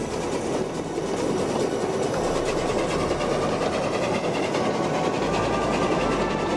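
A 600 mm narrow-gauge steam locomotive hauling a freight train past, the locomotive followed by its wagons rolling by on the rails. The running noise is steady and grows slightly louder toward the end.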